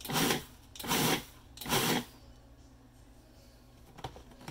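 Food processor pulsed three times in quick short bursts, its blade chopping oats and shredded cheddar, then stopping about two seconds in.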